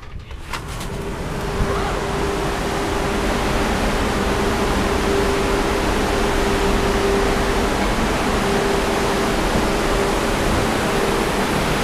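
Gale-force wind of about 50 knots rushing across a ship's balcony, a loud steady rush of noise that builds over the first couple of seconds, with a steady low hum running through it.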